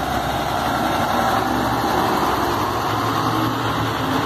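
Diesel engine of a Volkswagen city bus running as the bus pulls slowly past at close range: a steady engine drone.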